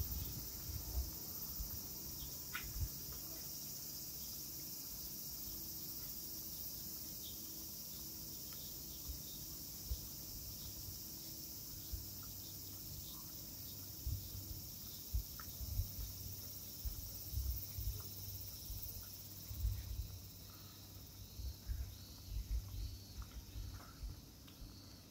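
A chorus of cicadas droning steadily and high-pitched, growing somewhat weaker near the end. Soft low thumps come and go underneath, more often in the second half.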